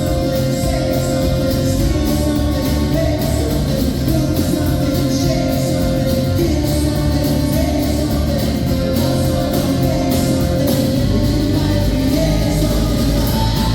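Live band music: guitars playing with a singing voice over them, loud and steady throughout.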